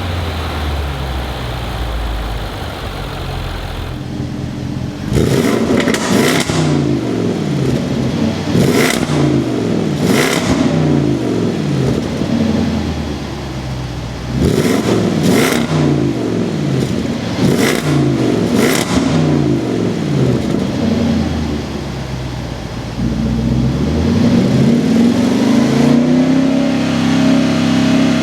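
Supercharged 5.0-litre V8 of a 2025 Land Rover Defender 110 accelerating hard through the gears. The exhaust note climbs in pitch and drops back at each upshift, with short crackles at several of the shifts, in two runs of pulls, then settles into one long steady climb near the end.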